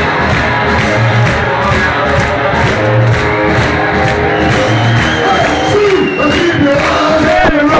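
Live rock band playing loudly: electric guitar over drums with a steady beat and a low pulse about once a second, with the crowd cheering. About five and a half seconds in, the beat drops away and long, bending sustained notes carry on.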